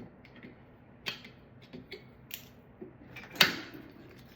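Small hand tools and 3D-printed plastic parts clicking and tapping as support material is picked off a print, a few scattered clicks with one sharper, louder click about three and a half seconds in.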